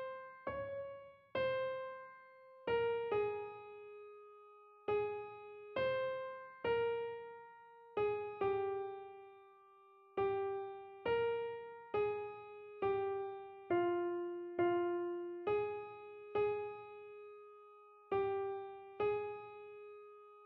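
Piano playing a single-line melody, one struck note at a time at a slow, even pace: the soprano part of a choral hymn played as a practice track. The last note comes about a second before the end and is held as it fades.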